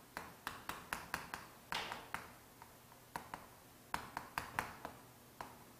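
Chalk writing on a chalkboard: irregular sharp taps as the chalk strikes the board, with a short scratchy stroke about two seconds in.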